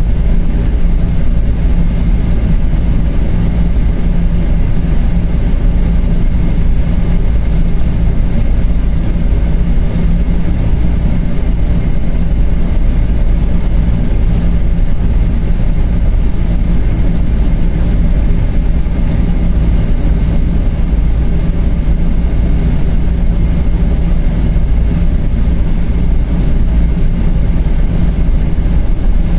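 Steady cabin noise in a Boeing 777-300 with Rolls-Royce Trent engines: a loud, even low rumble of engines and airflow with a faint steady whine above it.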